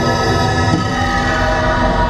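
Dark, droning electronic music: layered sustained tones over a low rumble, with one low drone sliding down to a new pitch under a second in.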